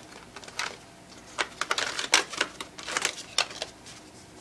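Hands pulling red plastic shipping clips and packing foam off a laser printer's drum and developer unit: a quick run of sharp plastic clicks and rustles, thickest in the middle.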